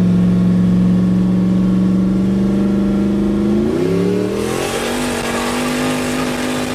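Pontiac GTO's V8 heard from inside the cabin, running with a steady drone, then revving up about three and a half seconds in and holding a higher pitch. A hiss rises in with it as the car picks up.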